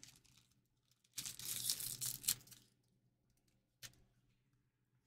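A booster pack's foil wrapper being torn open, a crinkly tearing lasting just over a second, followed by one faint click near the end.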